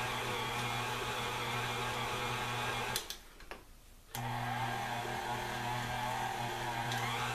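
KitchenAid stand mixer's motor running steadily, its flat beater churning a thick brownie batter. About three seconds in the sound cuts out for roughly a second, then comes back with a click.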